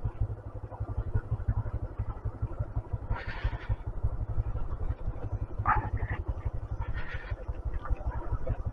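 A 125cc motorcycle's engine running as the bike is ridden, a dense low pulsing throughout, with a few brief higher noises over it about three, six and seven seconds in.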